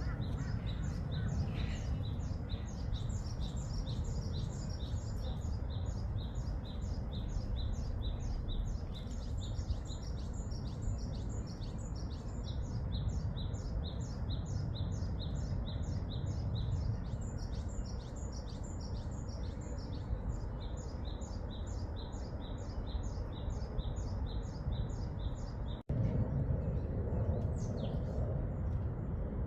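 A bird repeating a short, high chirp about two to three times a second over a steady low outdoor rumble. The chirping stops at an abrupt cut near the end, and a couple of single, falling high calls follow.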